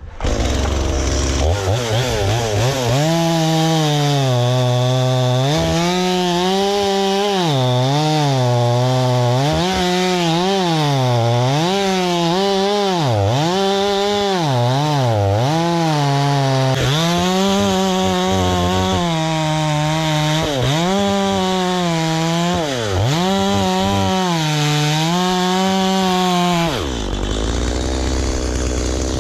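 Chainsaw running at high revs while cutting dead cedar wood. Its pitch repeatedly dips as the chain bogs in the cut and climbs back, then the revs fall away near the end.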